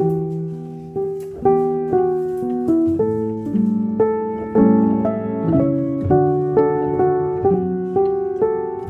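Calm piano background music: slow notes, about two a second, each left to ring and fade.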